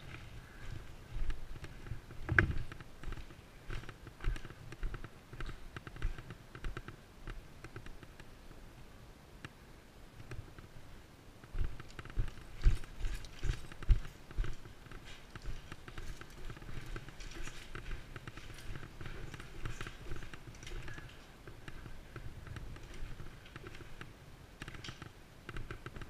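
Footsteps of a player moving on foot, heavy thumps at roughly two a second, with light clicks and knocks of carried gear. A cluster of louder steps comes about halfway through.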